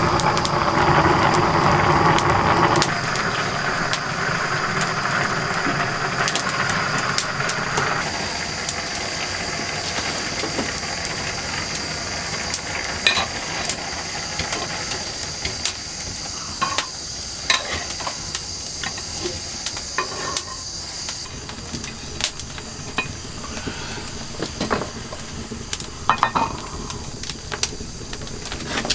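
Clay pot boiling over on a wood fire, the froth bubbling and sizzling for the first few seconds, then settling to a softer hiss. After that the wood fire crackles with scattered sharp pops and a few knocks, over a faint steady high whine.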